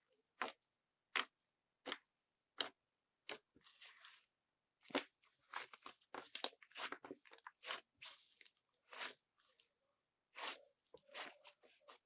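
White, sticky, fluffy slime worked by hand: sharp sticky clicks at first, about one every 0.7 s, then a denser run of crackling pops in the middle, a brief pause, and more clicking near the end.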